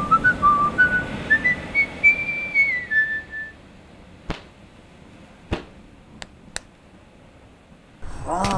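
A person whistling a short tune whose notes climb step by step and then drop to a held lower note, over the rush of breaking surf. A few sharp clicks follow in a quieter stretch, and a voice cries out near the end.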